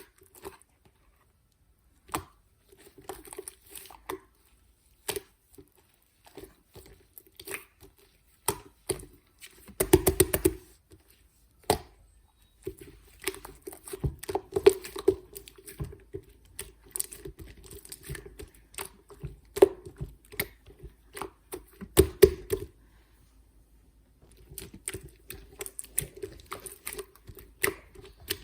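Slime being squeezed, poked and stretched by hand, giving irregular sticky clicks, pops and crackles, with denser bursts of popping about ten seconds in and again about twenty-two seconds in.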